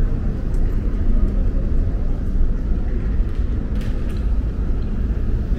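City street ambience: a steady low rumble of road traffic, with a few faint clicks.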